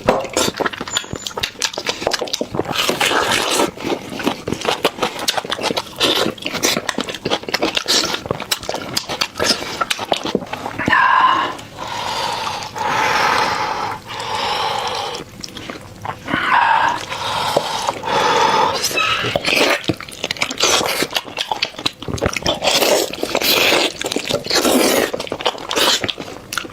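Close-miked, wet chewing and lip-smacking on beef trotter: fast sticky clicks and sucking sounds throughout, with a few longer, drawn-out sounds midway.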